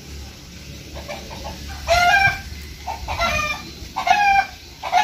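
Chicken calling: a series of four short, drawn-out pitched calls starting about two seconds in, repeating about once a second.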